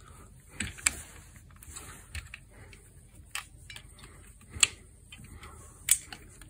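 Scattered small clicks and metal taps as the chrome rim and adjusting screws of a motorcycle headlight are handled by hand, about one a second, the sharpest a little over halfway through.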